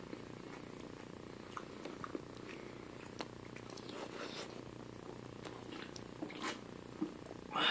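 Steady low hum with scattered soft clicks and smacks as a man chews and then picks up and drinks from an aluminium soda can, a few sharper ticks as he sips, and a short louder noisy burst at the very end.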